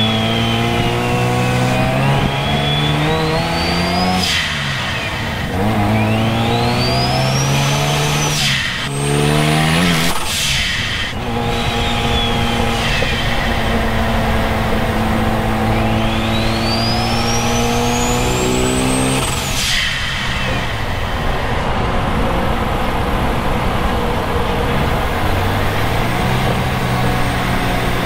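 Mazda RX-7's turbocharged two-rotor 13B rotary engine accelerating hard through the gears, its pitch climbing and dropping at each shift. The big Borg Warner EFR 9180 turbo's whistle rises sharply during each of several pulls, and a short rush of noise comes at four of the gear changes.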